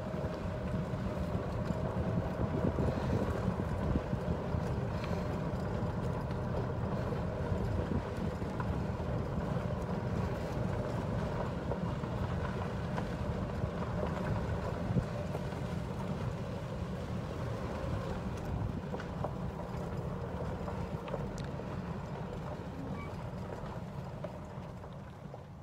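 Small utility cart driving along a dirt road: a steady low rumble of motor and tyres, with wind on the microphone, easing off near the end.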